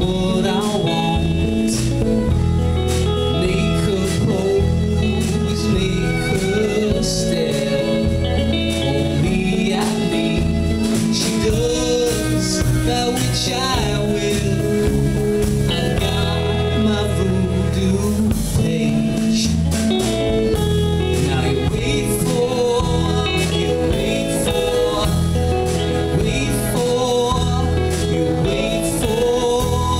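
A small band playing live: upright bass, a Gretsch drum kit, a hollow-body electric guitar and a fiddle, with a man singing lead.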